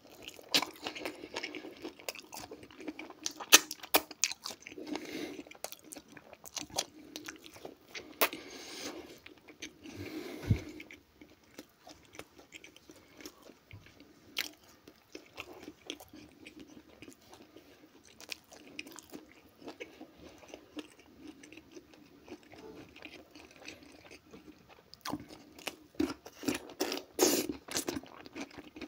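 Close-miked chewing and crunching of fried potatoes and grilled meat, with wet mouth sounds. The bites and crunches thin out in the middle and come thicker and louder near the end.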